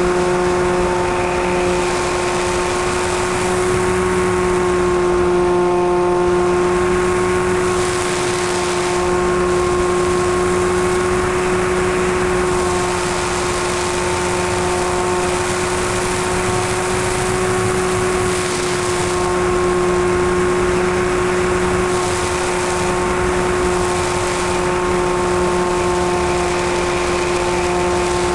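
Electric pusher motor and propeller of an EasyStar 2 RC model plane, heard from on board: a steady high hum at constant throttle, with wind rushing over the airframe that swells and fades a few times.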